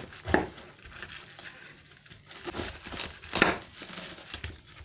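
Kitchen knife cutting a whole head of cabbage in half, the firm leaves crunching and cracking as the blade is pushed through. The crunches come unevenly, loudest about a third of a second in and again about three and a half seconds in.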